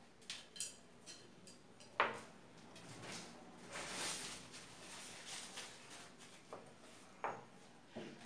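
Chopsticks clicking and scraping against a glass bowl of cheese ramen as the noodles are stirred and lifted, with a few sharp clinks, the loudest about two seconds in.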